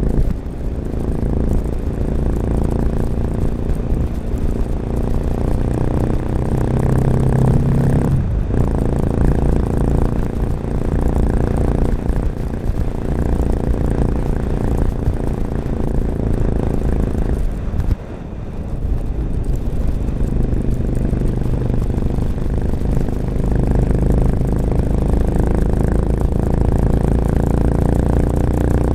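1986 Honda XL600RM's air-cooled single-cylinder four-stroke engine running through an XRacing exhaust with its dB killer fitted, ridden under load. The engine note climbs in pitch under throttle and breaks off sharply about eight seconds in and again about eighteen seconds in as the throttle closes, then builds again.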